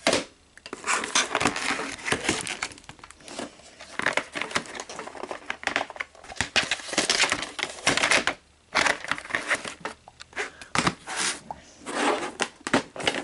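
Irregular crinkling, rustling and clicking of plastic being handled, with short pauses: a VHS cassette and its case being handled.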